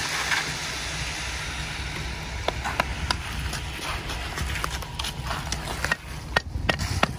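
Ready-mix concrete truck running with a steady low rumble while concrete rakes and shovels work the wet concrete. A rushing hiss over the first couple of seconds gives way to irregular sharp clicks and knocks of the tools from about two and a half seconds in.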